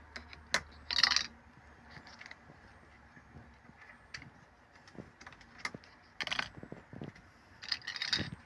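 Typewriter ink ribbon spool being wound round by hand: irregular small clicks and metallic rattles from the ribbon mechanism, with longer rattling scrapes about a second in, around six seconds in and near the end.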